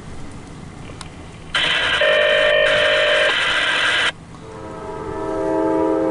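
Freight locomotive's air horn sounding two blasts. The first is loud and lasts about two and a half seconds, starting and cutting off abruptly. The second swells in about half a second later and is still sounding at the end.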